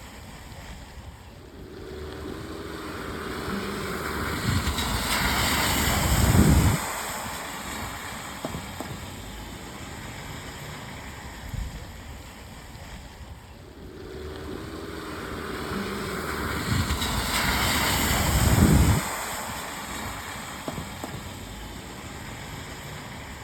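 Cars driving through puddles on a rain-soaked road over steady rain hiss. Twice, a car's engine hum and the hiss of tyre spray swell up over a few seconds and fall away, peaking about six seconds in and again about eighteen seconds in. The pass repeats as a loop.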